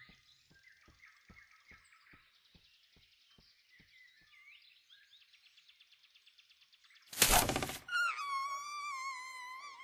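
Animated-film sound effects over faint forest ambience with bird chirps and a soft, regular ticking about three times a second. About seven seconds in, a loud, sudden burst of noise lasts about half a second. It is followed by a high sustained whistling tone that slides down slightly and then holds with a wavering pitch.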